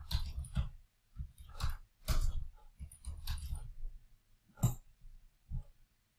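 Typing on a computer keyboard: a scatter of irregular key clicks with dull thuds. The sharpest, loudest click comes about four and a half seconds in, followed by a few fainter clicks.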